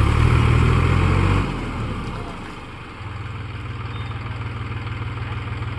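Diesel tractor engine running with an even, low beat. It is loud for about the first second and a half, drops away, then settles into a steady run from about three seconds in.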